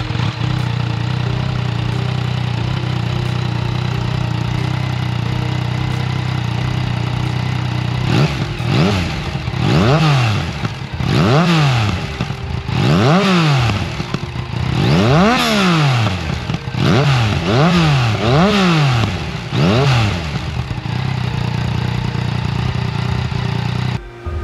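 Yamaha MT-09 SP's inline three-cylinder engine through an Akrapovic exhaust whose db-killer baffle has had its connecting tubes cut shorter. It idles steadily, then is given about eight quick throttle blips, each rising and falling back, before settling to idle again.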